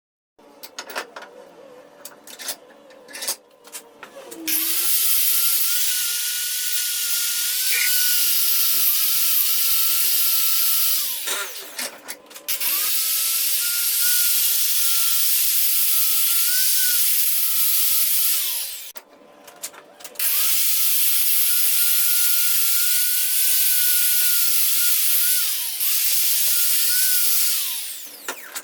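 Angle grinder running against a steel railroad rail in three long passes, each spinning up to a steady high whine over a hiss of abrasion and winding down between passes, with small clicks and knocks of handling in the gaps.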